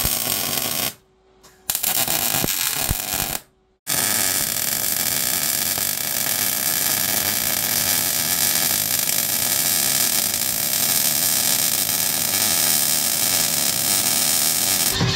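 Wire-feed welder arc crackling and hissing as it lays weld on steel angle iron: two short bursts, then an unbroken bead from about four seconds in.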